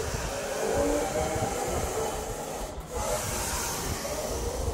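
Outdoor ambience: a steady hiss with a low, uneven rumble, and faint voices of people nearby, with a brief drop just under three seconds in.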